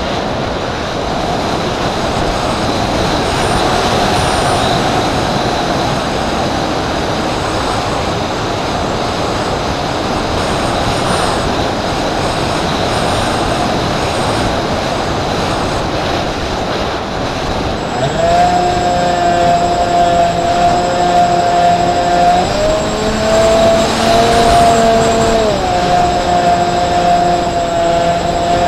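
A Multiplex TwinStar RC plane's twin electric motors and propellers whining in flight, heard from a camera mounted on the plane, under heavy wind rush. About 18 seconds in the motor whine becomes strong and steady, then steps down in pitch and back up as the throttle changes.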